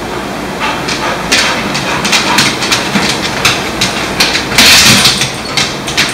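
Irregular knocks and rustling of movement across a hardwood floor: footsteps and handling noise, with a louder rush of noise about two-thirds of the way through.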